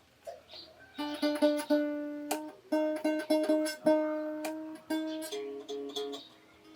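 Strings of a handmade rabeca, a folk fiddle, plucked one at a time while it is tuned by ear. One note is plucked over and over. From about five seconds in, a second, higher string alternates with it.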